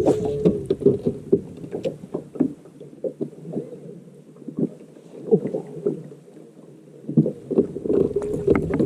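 Water lapping and slapping against a fishing boat's hull in irregular small knocks, with a steady hum at the start and again near the end.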